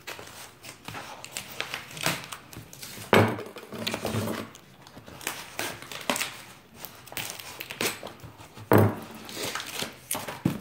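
A utility knife slitting open a cardboard comic mailer, with scraping and rustling as the cardboard is cut and handled. Two sharper knocks, one about three seconds in and one near the end.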